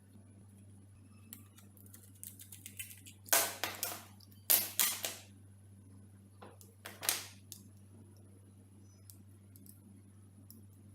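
Small hard parts being handled: scattered clicks and clinks, with three louder clattering bursts in the middle, over a low steady hum.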